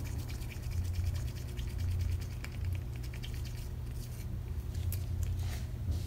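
Steady low hum of room noise, with faint scattered ticks and a few brief soft scrapes near the end as a stick stirs white epoxy resin in a small plastic cup.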